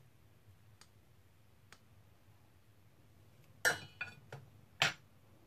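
A metal spoon clinking against ceramic dishes: two faint ticks, then four sharp clinks close together near the end.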